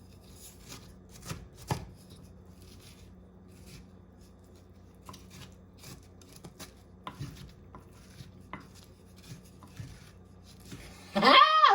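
Light, irregular taps and scrapes of a kitchen utensil working cooked spaghetti squash, over a faint low hum. Near the end a loud, short, pitched vocal exclamation cuts in.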